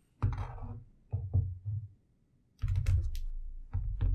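Handling noise from a laptop being picked up and turned over: a string of dull knocks and bumps, with a longer stretch of clattering in the second half.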